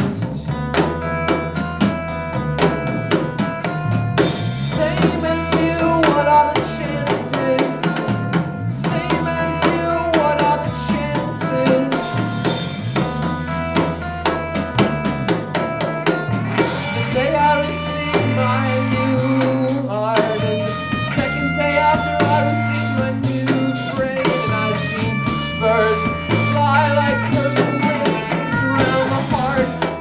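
Band music: a drum kit keeping a steady beat over a moving bass line and guitar.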